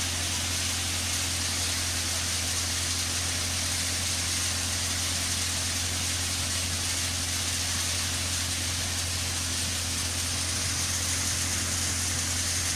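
An engine running steadily, with a constant low hum under an even hiss; nothing starts, stops or changes.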